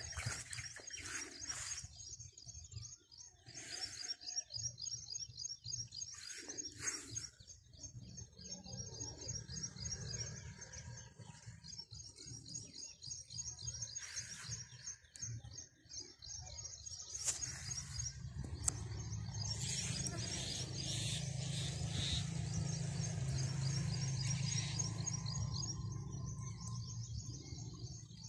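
Small birds chirping in quick repeated runs, with rustling and steps. About two-thirds of the way through a low steady hum comes in and becomes the loudest sound, easing off near the end.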